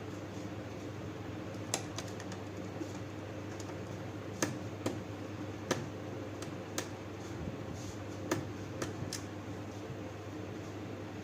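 Scattered sharp small clicks and taps, about nine of them at irregular intervals, from screws, a screwdriver and the plastic laptop casing being handled during reassembly, over a steady low hum.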